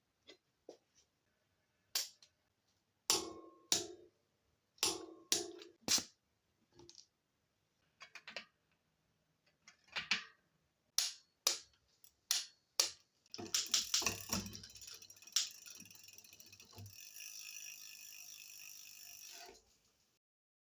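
Metal tools and parts in a workshop clicking and clanking in a series of separate knocks, then a steady hiss for about six seconds that cuts off near the end.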